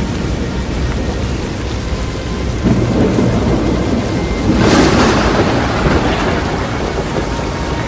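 Severe thunderstorm noise: a steady low rumble with rain, swelling louder about two and a half seconds in and again more strongly near five seconds in.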